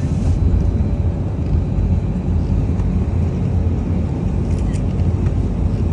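Tour bus running, heard from inside the cabin: a steady low rumble of engine and road noise.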